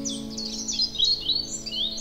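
Small songbirds chirping and twittering in a quick run of high, sweeping notes, several a second, over a soft held music chord.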